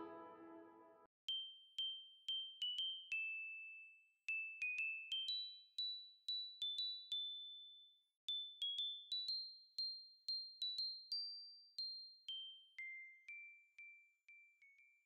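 The last piano notes of an ear-training melody fade out in the first second. Then a high, tinkling bell-like melody plays, note by note, in three short phrases.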